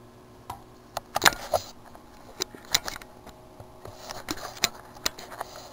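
Handling noise from a handheld camera being moved: about ten sharp, irregular clicks and knocks, the loudest cluster a little over a second in.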